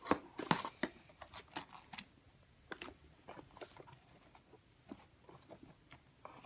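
Scissors snipping at a toy's cardboard-and-plastic packaging: a run of irregular clicks and snips, closest together in the first half-second, then sparser.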